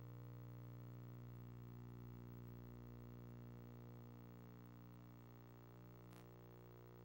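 Near silence: only a steady low hum, with one faint click about six seconds in.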